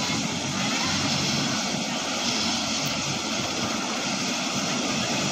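Helicopter running on the ground, its engine and rotor making a steady noise.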